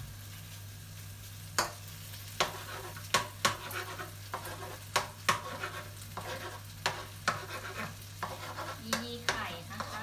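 Metal slotted spatula scraping and clacking against a nonstick wok while stir-frying noodles with shrimp and egg, over a steady sizzle. The clacks start about a second and a half in and come irregularly, one or two a second.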